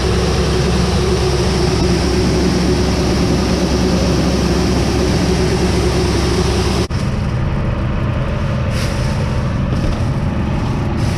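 Heavy farm machinery running steadily at a loud, even level, with an engine drone under a hiss. About seven seconds in the sound breaks off sharply and carries on duller.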